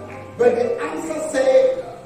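A person's voice in a large hall, over a low held note of background music that stops under a second in.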